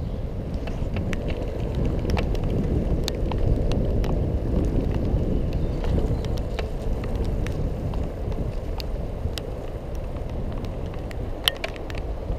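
Riding a Xiaomi M365 electric scooter: a steady low rumble of wheels and wind on the microphone, with many scattered sharp clicks and ticks.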